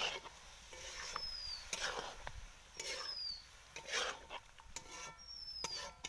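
Long metal spatula stirring through a watery curry in an aluminium karahi, a stroke about every second. A bird's short falling whistle repeats every two seconds or so behind it.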